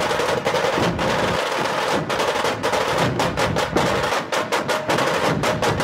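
Dhol-tasha ensemble playing: large barrel dhols beaten with sticks under the tashas' rapid, rattling stick strokes, in a dense, fast rhythm.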